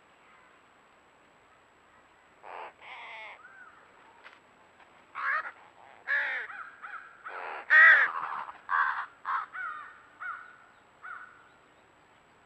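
Crows cawing: a run of about ten harsh caws, some overlapping, beginning a couple of seconds in and loudest around the middle.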